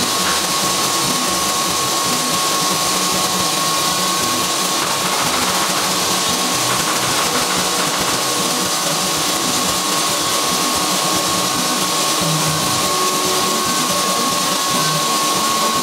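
Power saw running steadily in a woodworking shop: a constant high whine over an even hiss, with no breaks.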